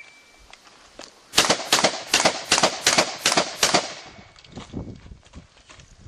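A rapid string of about seven shotgun shots, roughly two to three a second, fired in a practical shotgun stage with birdshot loads. Fainter scattered knocks follow after the last shot.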